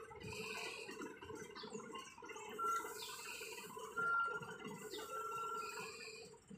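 Mitsubishi dump truck's diesel engine running steadily while its raised tipper body is lowered, with three brief high squeaks partway through.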